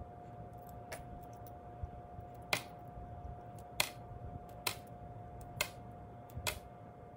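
Small plastic clips clicking as they are pulled off mesh netting one at a time: about eight sharp clicks at irregular intervals, with a faint steady hum underneath.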